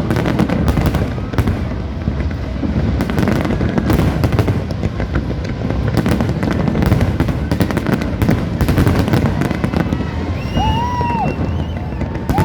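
Fireworks display: a dense, continuous run of bangs and crackling bursts, one on top of another. Near the end a few short whistle-like tones sound through the crackling.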